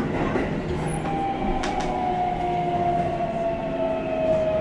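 Keihan 3000 series train running in a tunnel, heard from inside the car, with its Toyo IGBT-VVVF inverter whining over the wheel and rail noise. The whine sets in about a second in and falls slowly in pitch as the train slows under braking.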